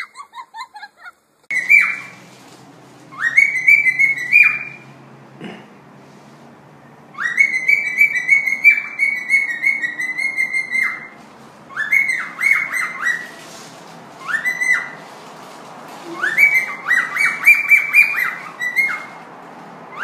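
Pet parrot whistling: runs of quick, high, repeated whistled notes, each rising sharply and then held, with pauses between the runs.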